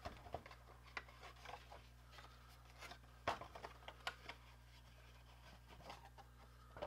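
Faint rustling and scattered light taps of a cardboard watch box and its paper sleeve being handled and opened, with a sharper tap about three seconds in.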